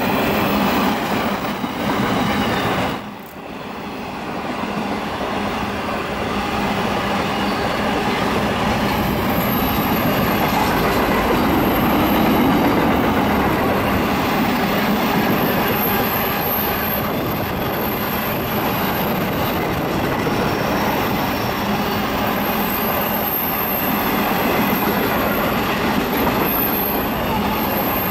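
Freight train wagons rolling past close by, their steel wheels rumbling steadily on the rails, with a brief dip in level about three seconds in. From about nine seconds in, a high-pitched wheel screech comes and goes over the rumble.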